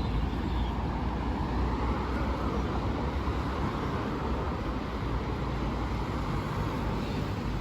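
Steady low rumble of a road vehicle or traffic, without pause or distinct events.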